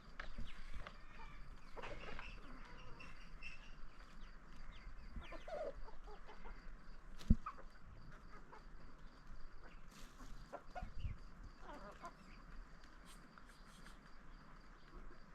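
Chickens clucking on and off. A single sharp knock sounds about seven seconds in.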